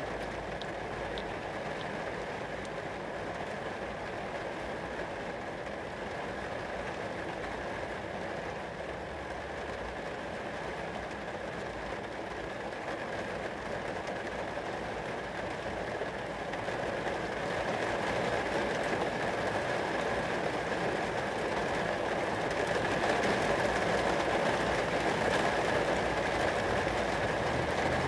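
Rain falling on glass: a steady, dense wash of drops that grows somewhat louder in the last third.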